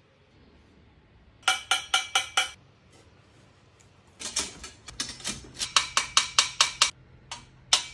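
Small hammer tapping metal in quick runs of ringing taps, about four a second, during dent work on a silver trumpet; a second, longer run starts about four seconds in.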